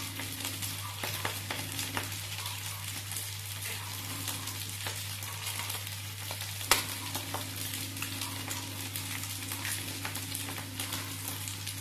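Rice frying in hot oil in a pan, sizzling steadily, with a few sharp taps of a knife blade cracking eggshells, the loudest about seven seconds in. A steady low hum lies beneath.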